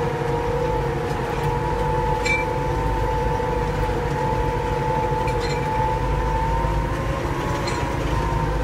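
Erkunt Kudret tractor's diesel engine running steadily under load while pulling a plough, heard from the driver's seat, with a steady whine over the low engine rumble.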